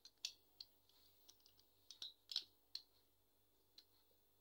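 About a dozen faint, irregular clicks and taps as a phone in its case is pressed into the clamp jaws of a metal motorcycle phone holder and handled for fit.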